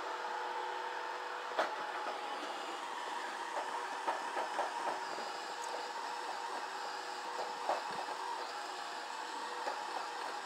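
Roomba robot vacuum running: a steady motor hum and whine with a few light knocks over it.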